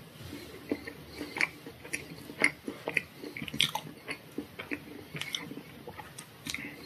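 Close-up chewing and crunching of a tart, mixed with irregular sharp clicks and scrapes as a fork and plastic knife cut into a chocolate tart.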